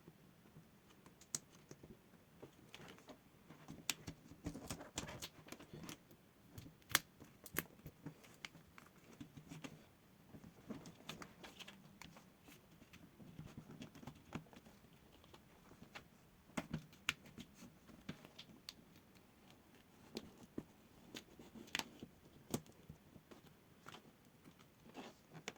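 Faint, irregular clicks and light tapping as the plastic screen bezel of a ThinkPad T14 Gen 2 laptop is pried off around its edge, its clips popping loose one by one.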